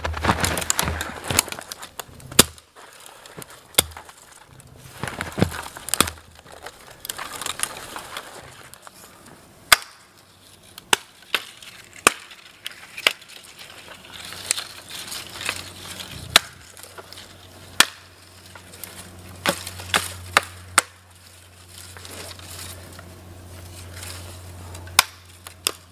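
Hultafors Hultan hatchet limbing a small dead sapling: irregular sharp chops, about one a second, as the blade knocks off dry twigs and small branches, with twigs snapping and crackling between strikes.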